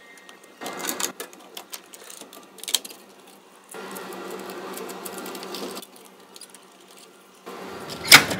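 Point-of-sale receipt printer printing in two runs of about two seconds each, a steady mechanical buzz, with scattered clicks between them and a loud clack near the end.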